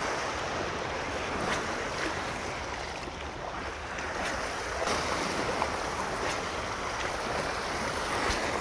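Sea waves washing against shore rocks, a steady surf wash, with wind on the microphone.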